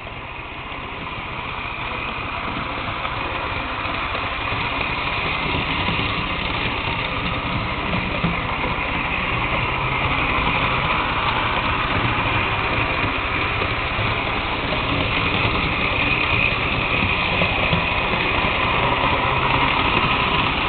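HO-scale model train running along the track, a steady mechanical running sound that grows louder over the first half and then holds steady.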